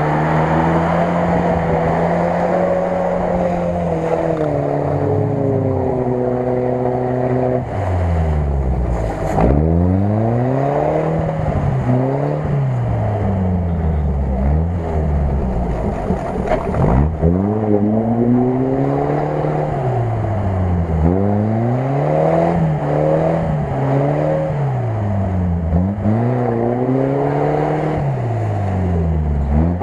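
UAZ-469 off-roader's engine working hard in deep mud: revs held high for the first several seconds, then pumped up and down again and again, about every second or two, as the driver rocks the wheel-spinning truck through the bog.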